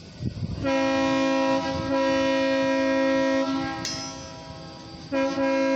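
Locomotive air horn sounding a chord of several notes, blown for the road crossing. There is one long blast with a slight break in the middle, then it fades, and a new long blast starts near the end. A low rumble of the train runs underneath.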